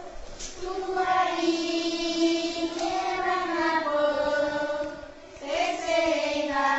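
Singing in long held notes that glide from one pitch to the next, with a short break about five seconds in.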